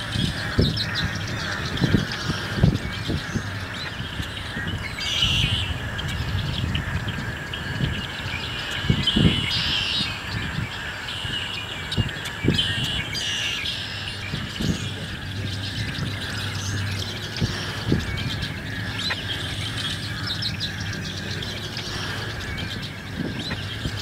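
Wetland bird chorus: many birds chirping with occasional squawks over a steady high background hum, and scattered low thumps.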